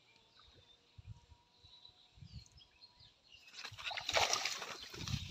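Quiet at first with a few faint low knocks. About three and a half seconds in, a loud burst of splashing and rustling starts as the bamboo fishing pole is jerked up out of the pond's weedy water.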